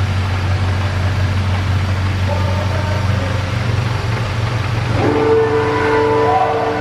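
A car engine idling with a steady low hum. About five seconds in, a sustained chord of several steady tones starts and holds.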